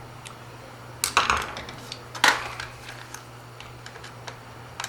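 Hard clicks and knocks of the climate control unit being handled and turned over on the bench. There is a cluster of clicks about a second in, the sharpest knock just after two seconds, and lighter ticks after, over a steady low hum.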